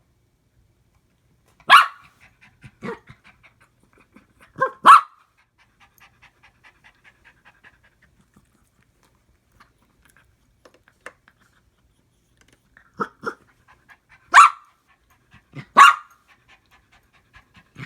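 A dog barking in loud, sharp single barks: two about three seconds apart, then after a lull two more about a second and a half apart. Between them come quieter yips and quick, soft panting.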